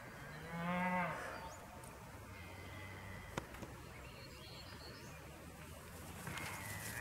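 A sheep bleats once, briefly, about half a second in. A single sharp click comes a few seconds later.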